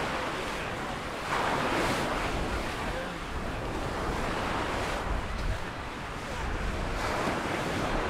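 Mediterranean surf breaking and washing up a sandy beach, swelling as a wave comes in about a second in and again near the end, with wind rumbling on the microphone.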